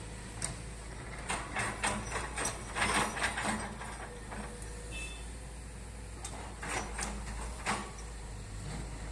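A motor vehicle running with a steady low rumble, with two spells of irregular rattling knocks, the first around two to three seconds in and the second near the end.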